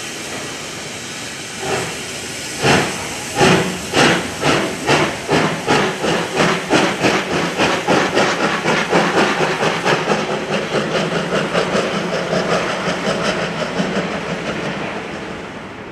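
Two-cylinder C57 steam locomotive pulling away under power. Steam hisses at first, then exhaust chuffs begin about two seconds in, slow and heavy, and quicken steadily to several a second as it gathers speed. The beats grow a little fainter near the end.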